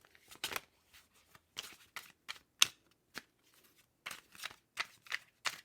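A deck of tarot cards being shuffled by hand: a string of sharp, uneven card slaps and snaps, about two or three a second.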